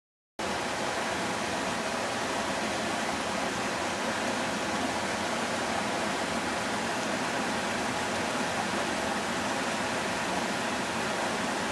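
Steady rushing of a river flowing over rocks, an even hiss that starts abruptly about half a second in and holds unchanged.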